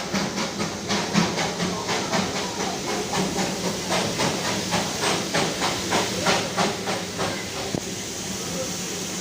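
Darjeeling Himalayan Railway steam locomotive chuffing at about four exhaust beats a second. The beats die away about seven and a half seconds in, leaving a steady hiss.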